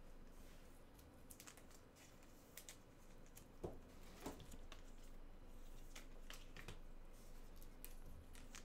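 Faint, scattered light clicks and rustles of hands at work, with no speech.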